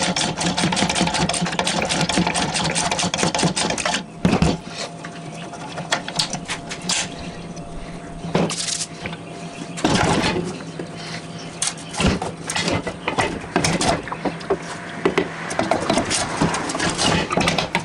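Hand ratchet clicking rapidly as the bolts holding the pump to the pressure washer's engine shaft are backed out. After that come scattered metal clinks of the wrench and bolts being handled and set down, and more quick ratcheting near the end.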